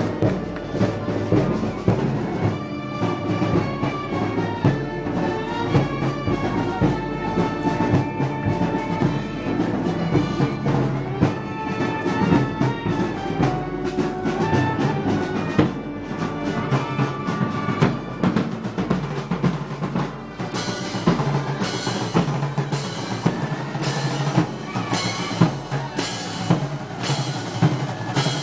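Festival band of brass, woodwind and percussion playing parade music. About three-quarters of the way through, cymbal crashes start landing on the beat, a little more than once a second.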